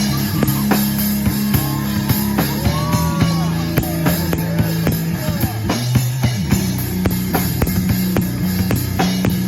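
Live rock band playing: a drum kit keeps a steady beat under held bass notes that change pitch every second or two, with a few gliding higher notes partway through.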